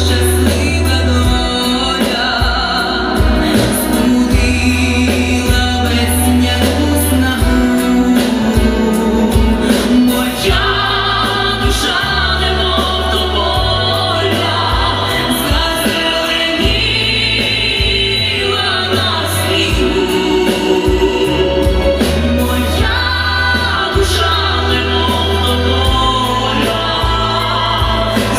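A song sung with vibrato over a music backing track, with a bass line that moves in held notes.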